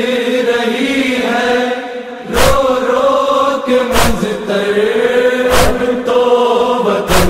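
Voices chanting a drawn-out, wavering noha lament line. Four sharp beats fall about every second and a half, from a little over two seconds in.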